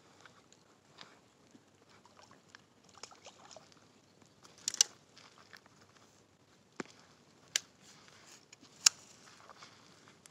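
Handling noise while a bass is reeled in and swung out of the water on a spinning rod: light rustling with a few sharp clicks and taps, the loudest a short cluster about five seconds in and a single snap near the end.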